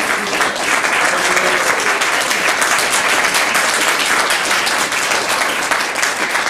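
Audience applauding: many people clapping at once, a dense steady patter.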